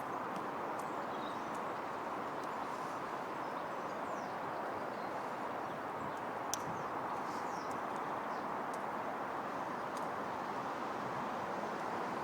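Steady outdoor background noise, a constant even hiss, with faint bird chirps and one sharp click about six and a half seconds in.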